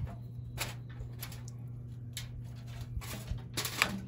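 Handling noises as a meat thermometer probe is pulled from a roast on a smoker grate and its wire gathered up: several short crinkles and clicks, busiest near the end, over a steady low hum.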